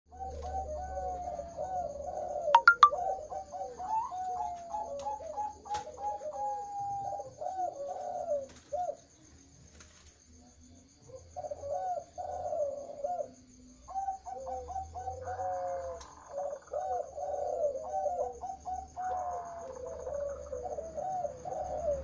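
Captive zebra doves and spotted doves cooing, several birds overlapping in repeated phrases, with a lull about halfway through. A few loud sharp clicks come about two and a half seconds in, over a faint steady high whine.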